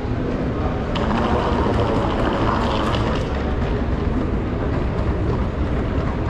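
Steady low rumble and whirr of an airport moving walkway running underfoot, mixed with general terminal noise, with a few faint ticks about a second in.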